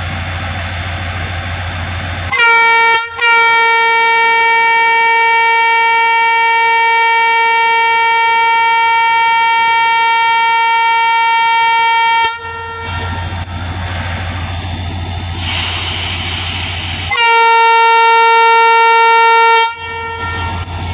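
Diesel locomotive air horn sounding a short toot, then a long blast of about nine seconds, and after a hiss a second blast of about two and a half seconds. The locomotive's diesel engine hums steadily underneath as the train readies to depart.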